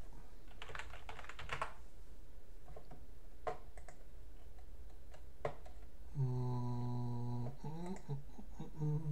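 A quick run of computer keyboard keystrokes as a password is typed, then a few single clicks. About six seconds in, a man hums one steady low note for about a second and a half, then hums briefly again near the end.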